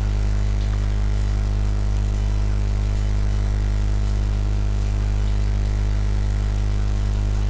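Steady electrical hum with a low fundamental and evenly spaced overtones, running at an even level under a faint hiss: mains hum picked up by the recording microphone chain.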